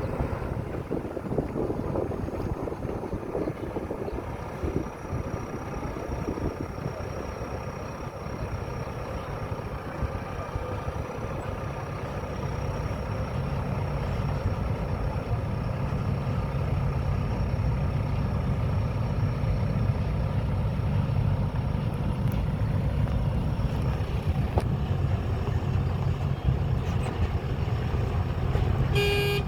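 JCB backhoe loader's diesel engine running while it works, the low hum growing louder and steadier about twelve seconds in. Wind buffets the microphone in the first few seconds.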